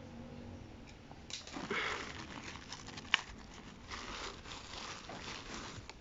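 Plastic courier mailer bag rustling and crinkling in irregular bursts as it is handled and a case is pulled out of it, with one sharp click about three seconds in.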